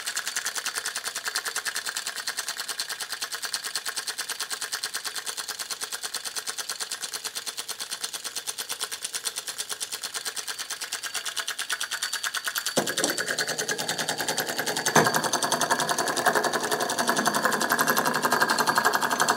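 Homemade electromagnet model engine running fast on a 12-volt battery, its cam-worked micro switch and magnet clicking in a rapid, even chatter. The chatter grows louder about two-thirds of the way through.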